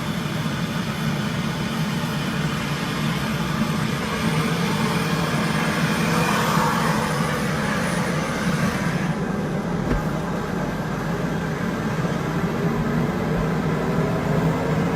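Steady loud engine noise, with tones rising slightly in pitch in the last few seconds.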